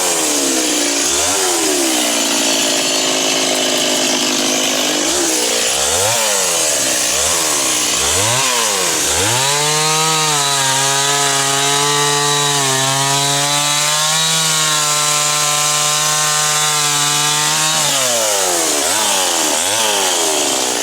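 Two-stroke chainsaw revved in short, repeated throttle blips, then held near full throttle for about nine seconds in the middle, as when cutting through wood, before dropping back to short revs.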